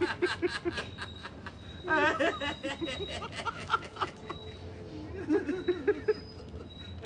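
People laughing and chuckling together in short rhythmic bouts: a quick run of ha-ha pulses at the start, a louder laugh with swooping pitch about two seconds in, and another bout of chuckling near the end.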